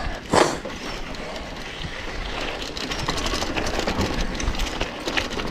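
Mountain bike rolling along a dirt and gravel track: tyres crunching over the ground with small rattles and clicks from the bike, and a louder knock about half a second in as it goes over a bump.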